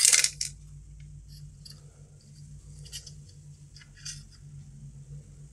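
Clicks and scrapes of a small tool working against a circuit board, bending a transistor over to reach its marking: a loud rattle of clicks at the start, then scattered light clicks and scrapes.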